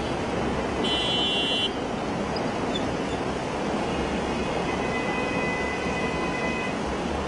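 Steady noise of traffic moving along a flooded road, with a vehicle horn sounding once, briefly, about a second in.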